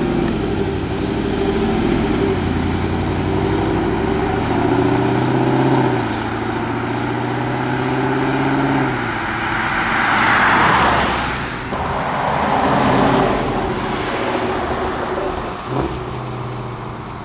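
Supercharged V8 of a Jaguar F-Pace SVR prototype accelerating, its pitch climbing, dropping at a gear change about six seconds in and climbing again. Around ten seconds in it swells into a louder rush as the SUV goes by.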